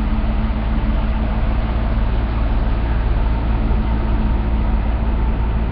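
Steady outdoor background rumble with a hiss over it, even throughout, with no distinct events.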